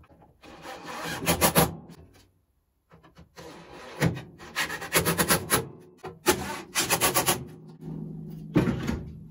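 Cordless drill running in several short bursts, drilling holes through the new steel scuttle panel for its fixing screws, with a rasping sound as the bit cuts the sheet metal.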